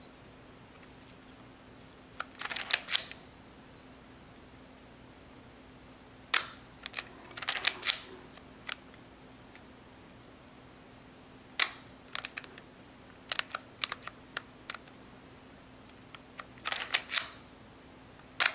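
Leica M6 rangefinder's cloth focal-plane shutter firing about three times, each a single sharp click. Between the shots come bursts of rapid small ratcheting clicks as the film advance lever is wound to re-cock the shutter.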